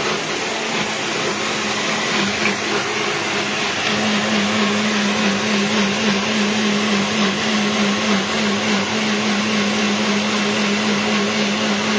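Swan blender motor running steadily at full speed, blending ginger, garlic, oil and water into a puree, with a steady hum under the rushing whir of the blades through the liquid.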